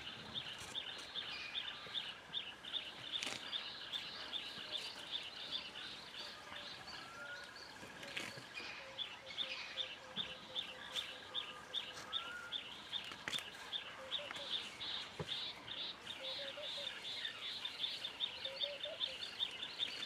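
Birds calling in the bush: one bird repeats a short, high note about three times a second, thinning out a few seconds in and picking up again near the middle, while other birds give fainter, lower calls and short rising whistles underneath.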